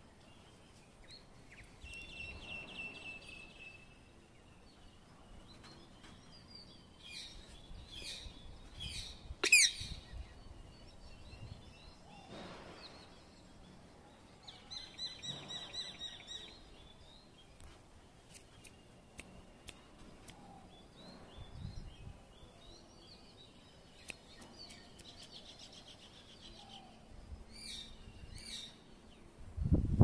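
Rose-ringed parakeet calling in scattered bursts of short, quick chirping notes, with the loudest a single sharp call about nine and a half seconds in, over faint outdoor background noise.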